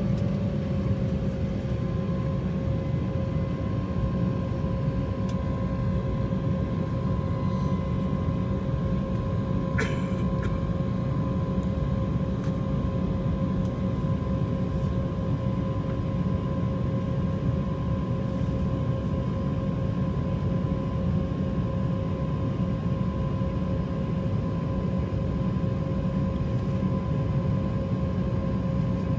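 Cabin noise of an Embraer 190 taxiing, its twin GE CF34-10E turbofans at taxi power: a steady low rumble with a steady whine over it. A brief click about ten seconds in.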